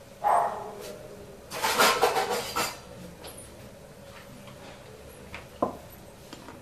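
Kitchen handling noises over a steady low hum: a short knock just after the start, a louder rattling clatter around two seconds in, and one sharp click a little after five seconds.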